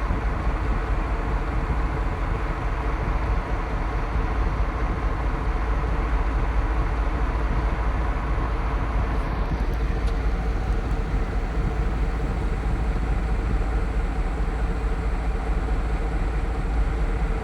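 Heavy construction machinery engine running steadily, a constant low rumble, its tone shifting slightly about ten seconds in.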